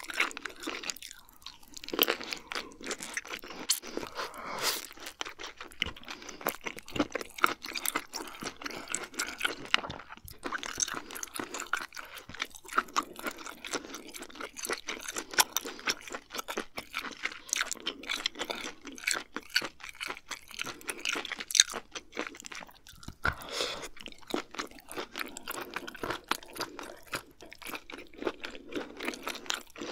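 Close-miked chewing of abalone: a steady stream of small clicking, crunching mouth sounds with a few short pauses.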